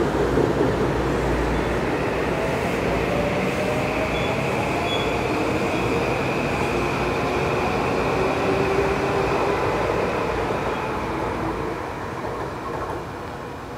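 Metro-North M8 electric multiple-unit train running past on the rails: a steady rumble of wheels with a faint motor whine. It fades near the end as the train draws away.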